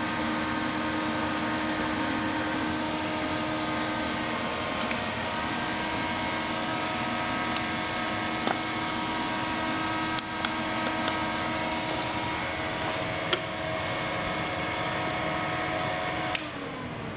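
Home-built induction heater rig running: a steady hum of several held tones over a hiss, with a few scattered clicks. Near the end a click, then the hum drops away and one low tone glides down as it stops.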